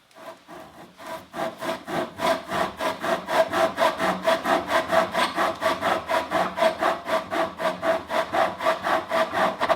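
Steel pocket chainsaw, a flexible chain of bidirectional cutting teeth, pulled back and forth through wood in fast, even strokes, several a second. It starts softly and builds to full, loud strokes within about two seconds.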